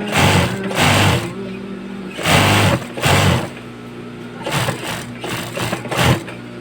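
Industrial single-needle sewing machine stitching in short bursts, starting and stopping about half a dozen times.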